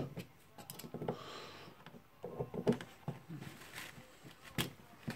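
Screwdriver tip clicking and scraping against the steel ring spring on a Makita HR2470 rotary hammer's tool holder as the ring is pried off: scattered small clicks, a short scrape about a second in, and one sharp click near the end.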